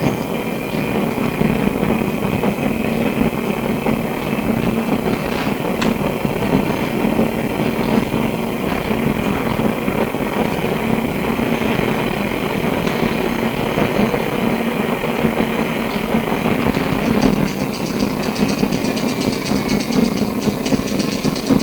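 Steady running noise heard inside a Melbourne SW5 class tram: a continuous low hum with a faint high whine over it. A few clicks come through about a quarter of the way in, and a rapid fine ticking joins near the end.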